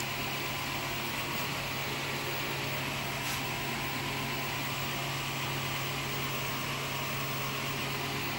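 Steady low hum under an even hiss, with no speech or music.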